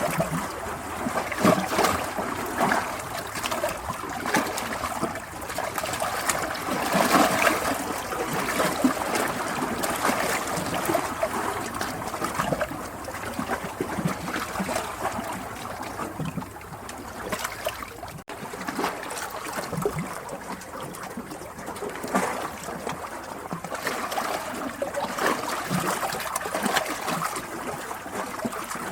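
Water flowing and trickling steadily, with small splashes and gurgles that swell and ease.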